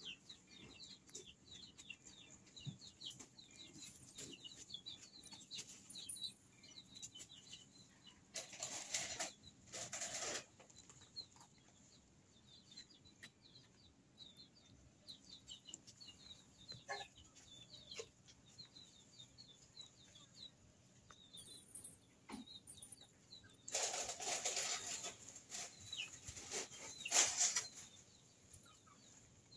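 Birds chirping in the background, many short high calls, with two louder bursts of noise, each lasting a second or two, partway through and near the end.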